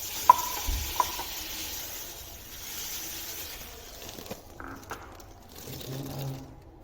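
Two ringing metal clinks against a pot, then a steady hiss of granulated sugar pouring over star gooseberries in the pot, with a few soft knocks after about four seconds.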